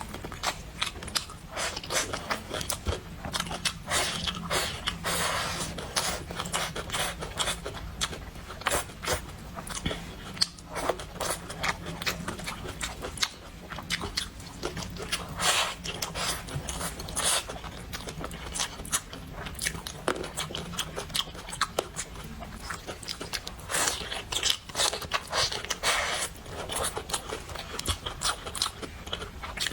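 Close-miked eating: a person chewing and biting food, with dense, irregular wet clicks and crunches and a few longer bursts of noise.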